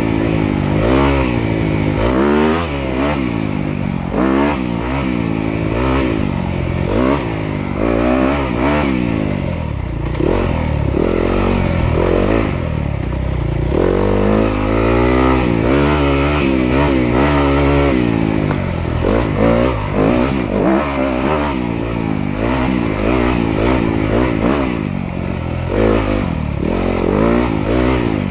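Dirt bike engine going on and off the throttle, its pitch rising and falling every second or two, with rattles and knocks from the bike over the rough trail.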